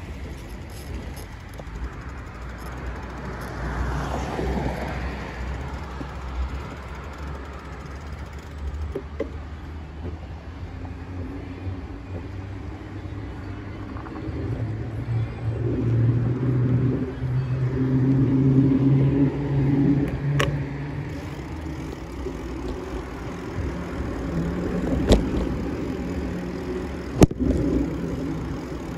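Road traffic on a busy multi-lane road: cars going by in a steady rumble, with one vehicle's engine hum swelling and fading in the middle. A few sharp clicks stand out near the end.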